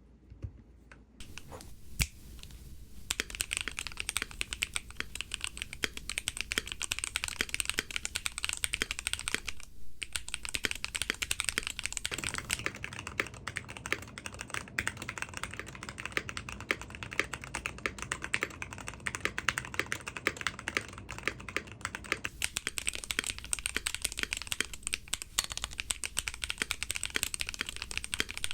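Fast typing on a Mojo68 mechanical keyboard: a dense run of key clacks from its switches. A few lone keystrokes come first, then steady rapid typing, with a short pause about ten seconds in.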